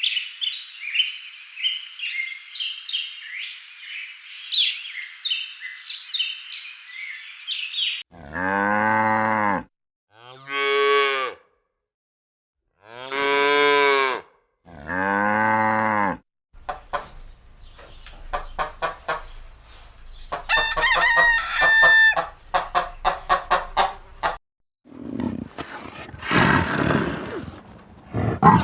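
A run of farm animal calls: about eight seconds of dense high chirping, then four long drawn-out cattle moos, then hens clucking with a rooster crowing partway through, and a rough noisy animal call at the end.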